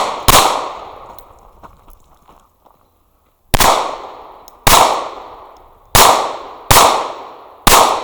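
Pistol shots on a match stage: one shot just after the start, a pause of about three seconds, then five more shots roughly a second apart, each sharp crack fading off with a short echo.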